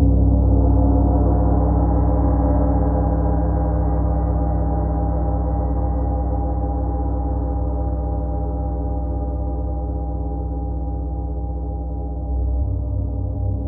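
Large gong ringing in a long sustained wash of many overlapping tones with a throbbing in the low range, slowly fading, then swelling up again near the end as it is played anew.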